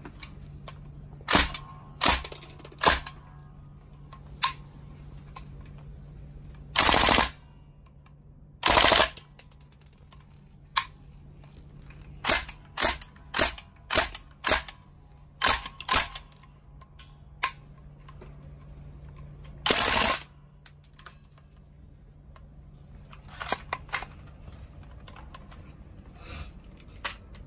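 Northeast STEN Mk2 gas blowback airsoft submachine gun firing: sharp single shots mixed with three short full-auto bursts, with a few fainter shots near the end.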